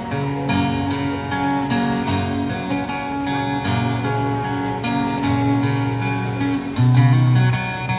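Acoustic guitar strummed in a steady rhythm, with chords changing every second or so in an instrumental passage.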